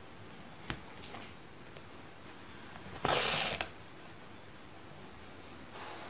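Thread being drawn through fabric stretched taut in an embroidery hoop: a short rasping hiss about three seconds in, after a light click near the start.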